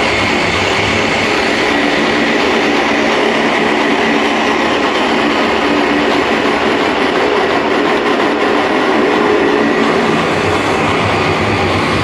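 Electronic dance music from a DJ set played loud over a club sound system: a dense, noisy passage with no clear kick-drum beat.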